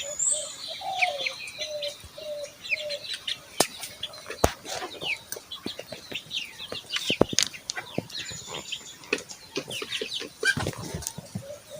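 A flock of poultry in a shed. A hen clucks in a short run of low notes near the start, over high chirps and peeps from other birds. Sharp clicks and knocks are scattered throughout.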